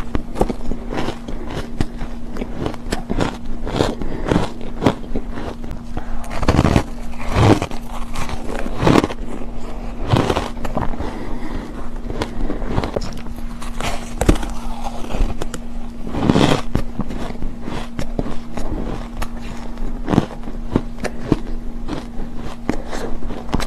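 Close-miked chewing and crunching of soft, frosty ice chunks. Many small crackly crunches come in quick succession, with a few louder bites at intervals, over a steady low hum.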